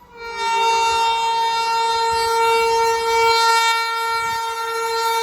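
Indian Railways WAG-7 electric locomotive's horn blowing one long, steady, high-pitched blast. It starts a moment in and is held without a break.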